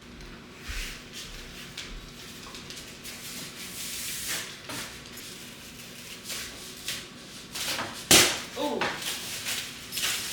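Packages and packaging being handled: rustling, scraping and knocking, with one loud thump about eight seconds in.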